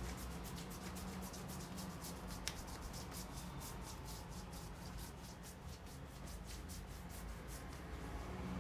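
Head massage: quick, repeated rubbing strokes over hair and scalp, a dry scratchy brushing sound, over a low steady hum.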